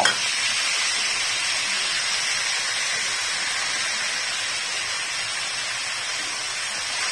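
Diced raw potatoes frying in hot oil in a karahi: a steady sizzle that eases a little as it goes on.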